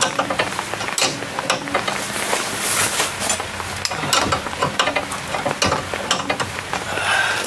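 Hand wrench working the threaded rod of a coil-spring compressor on a car's front coil spring: irregular metallic clicks and scrapes over a steady hiss.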